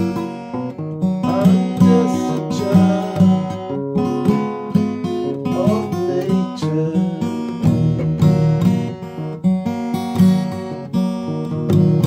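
Acoustic guitar music playing continuously.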